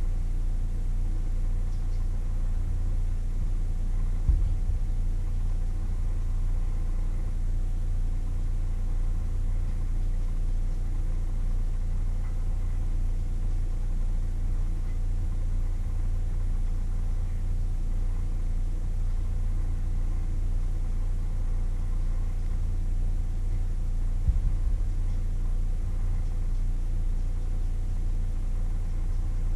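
A steady low mechanical hum runs throughout with faint steady tones, and two dull thumps break in, one about four seconds in and one about twenty-four seconds in.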